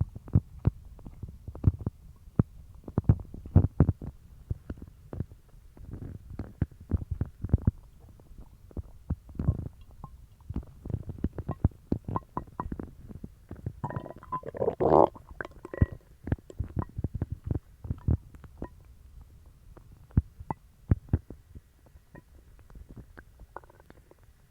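Human stomach gurgling and rumbling from an upset stomach (bellyache after eating dog treats). It is a run of short pops and squelches, with one longer, louder, pitched gurgle a little past halfway. The sounds grow sparser and fainter near the end.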